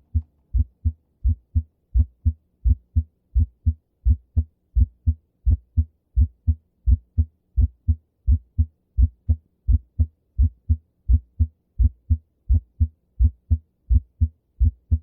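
Human heart sounds from an auscultation recording: a steady, regular run of beats in which the first heart sound is clearly split into two distinct sounds. This is an example of pathological splitting of the first heart sound.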